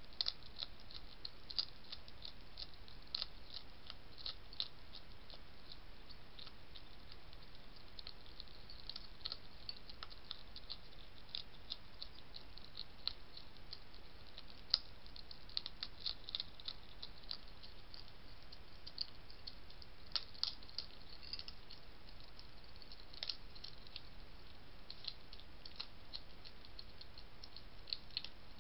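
Wild European hedgehog eating dry food from a dish, its teeth crunching the pellets in quick, irregular clicky chomps. Underneath is a steady faint hiss.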